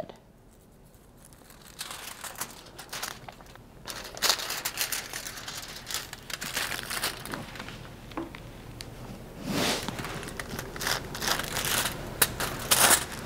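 Aluminium highlighting foil crinkling in irregular bursts as it is handled and laid under a section of hair, starting about two seconds in.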